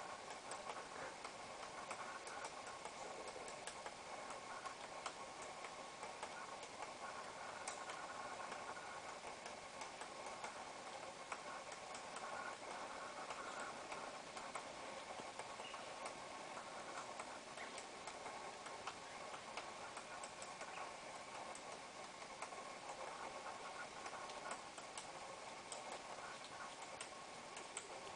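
Light, irregular taps of a yellow-browed woodpecker pecking at tree bark, heard over a steady background drone.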